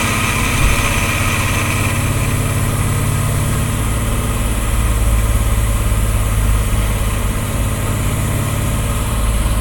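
1969 Pontiac GTO's V8 running steadily with a low drone and vibration, the car showing a grinding noise that comes up through the transmission tunnel and is present only with the rear wheels on the ground. A higher whir is heard over the drone for the first couple of seconds, then fades.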